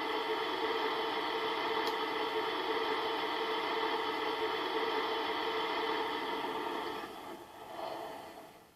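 Tamiya RC fire engine model giving off a steady mechanical drone at a fixed pitch, which dies away over the last two seconds.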